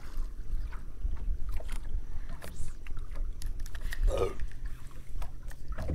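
Choppy water slapping against a small boat's hull, under a steady low rumble, with scattered small clicks and knocks.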